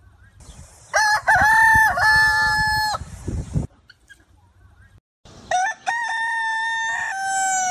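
Kampung rooster crowing twice, each crow about two seconds long, the second trailing off in a falling tail.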